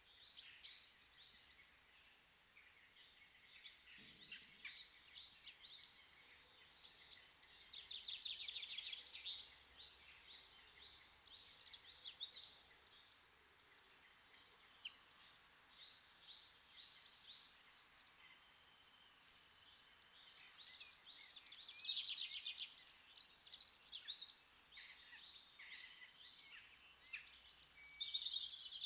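Several songbirds singing at once in a summer chorus: overlapping high-pitched chirps, repeated notes and fast trills. The chorus pauses briefly twice.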